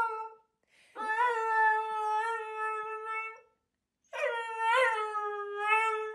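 Young husky-type dog howling: two long, steady howls, one starting about a second in and one about four seconds in, the second wavering briefly near its start.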